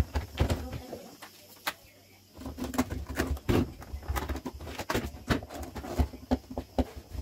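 Irregular plastic clicks, knocks and creaks of a Samsung refrigerator's ice maker and auger motor assembly being tugged and worked loose by hand, the parts held stiff by built-up ice. A sharp knock right at the start is the loudest sound.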